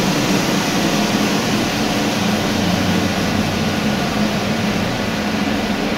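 VW Passat B6 engine idling on a chassis dynamometer just after a power run, with the dyno's cooling fan blowing steadily over it; an even, unbroken hum with no revving.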